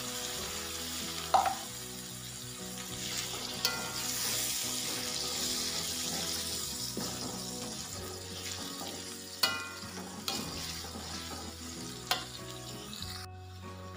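Spice paste with lemongrass and lime leaves sizzling in oil in a metal wok, stirred with a metal spatula that clicks and scrapes against the pan a few times. The sizzle cuts off suddenly near the end.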